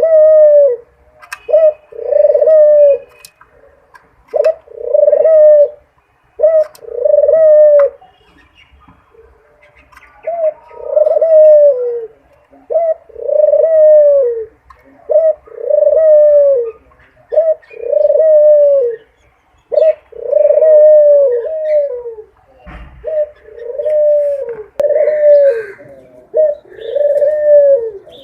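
A dove cooing over and over: short, low coos that rise and fall, about one a second in runs, with a pause of a couple of seconds about a third of the way through.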